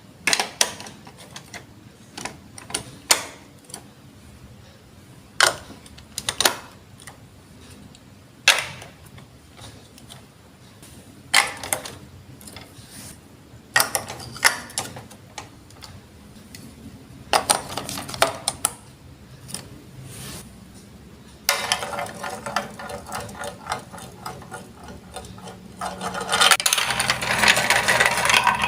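Plastic Lego Duplo blocks clicking and knocking as they are set in place, about a dozen sharp clicks spread out. From about two-thirds of the way in, a continuous rattle of marbles rolling down the plastic block track takes over and grows louder near the end.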